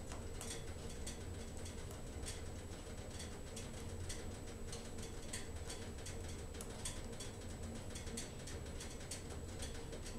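A split log burning in a wood-burning stove, the fire crackling with irregular sharp pops several times a second over a low steady rumble.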